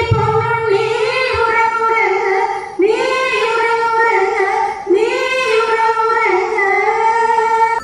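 A group of women singing a slow melody together in unison, unaccompanied, in long held notes. Each phrase opens with an upward scoop, with new phrases starting about three and five seconds in.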